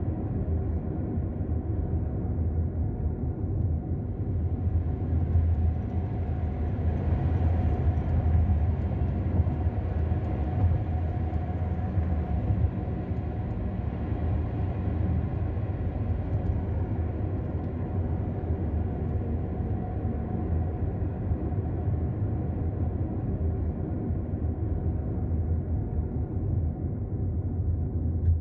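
Steady low rumble of a running vehicle's engine and road noise, swelling slightly a few seconds in and easing back later.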